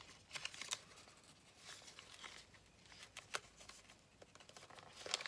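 Paper being folded and creased by hand: faint, scattered rustles and soft crinkles, with a sharper crackle near the end.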